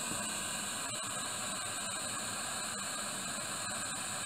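Steady hiss of a gas blowtorch flame firing into the firebox of a model steam engine's copper locomotive-style boiler, heating it to raise steam before the engine runs. A few faint clicks sound over it.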